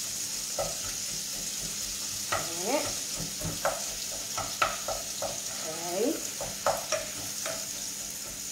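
Oil sizzling steadily in small pots on a gas stove while a utensil stirs red prawn shells frying in a soffritto, with irregular taps and scrapes against the pot, a couple of them squeaky.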